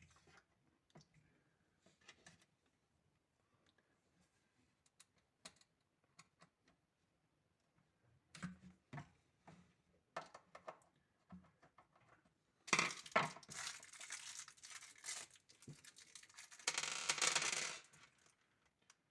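Small hardware and tools being handled: scattered light clicks and metallic clinks, then a few seconds of louder harsh scraping noise in two stretches near the end.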